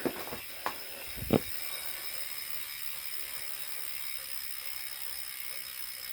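Freehub pawls on a Wahoo Kickr smart trainer ticking steadily as its flywheel coasts, after two knocks, one about half a second in and a louder one just over a second in.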